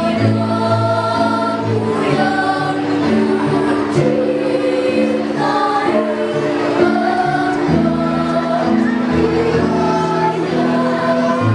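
Children's choir singing together over an instrumental accompaniment that holds long low chords.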